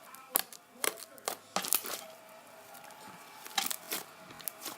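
Homemade slime being squeezed and stretched, giving a string of sharp pops and snaps, several in the first two seconds and a few more near the end.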